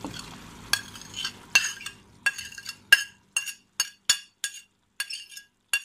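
A spoon knocking and scraping against a ceramic plate to push chopped grilled green peppers into a clay tagine: about a dozen short ringing clinks, two to three a second. Faint frying sizzle from the tagine under the first few clinks, stopping about halfway.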